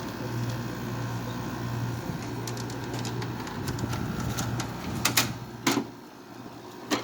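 Window air conditioner running with a steady low hum from its compressor and fan, with several sharp plastic clicks and knocks in the second half. The hum drops away about six seconds in.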